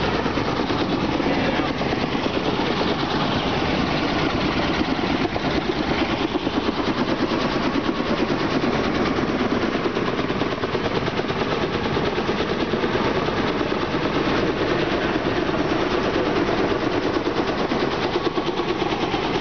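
An engine running steadily close by, with a fast, even pulse.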